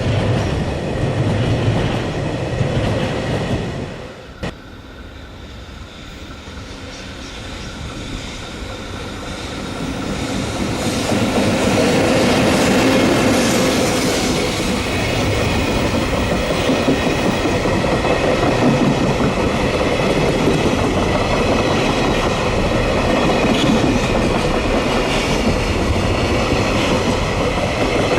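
Freight train running past on the line, its wheels and cars loud and close. About four seconds in the sound drops away abruptly; another train then builds up over several seconds and runs past steadily, with a thin whine mixed in.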